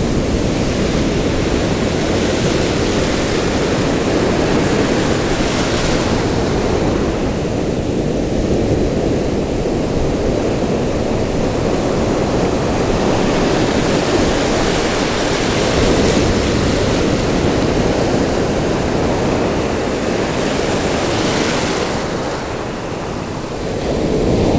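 Ocean surf breaking and washing in over a sandy beach: a continuous rushing wash, with the hiss of breaking waves swelling louder about five seconds in and again near the end.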